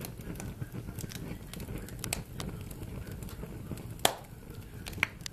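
Fire burning in a fireplace, crackling with irregular sharp pops over a low steady rumble; the loudest pop comes about four seconds in, another about a second later.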